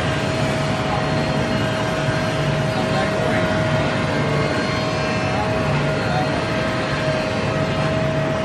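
CNC router running: a steady high whine over continuous machine noise, with a low hum that swells and fades from time to time.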